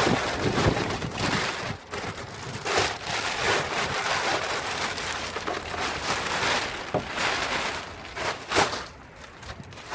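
Wind gusting across the phone's microphone: a crackling rush that rises and falls and eases off near the end.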